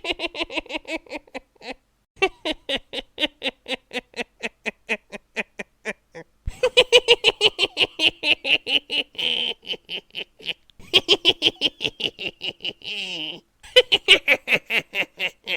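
A witch's cackling laugh: rapid, high-pitched "ha-ha-ha" pulses, about seven a second, in several long runs with short breaks between them.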